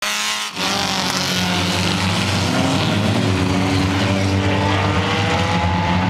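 Several compact stock race cars, a Honda Civic among them, running hard on an oval track, their engines overlapping and rising and falling in pitch as they pass, with a brief break about half a second in.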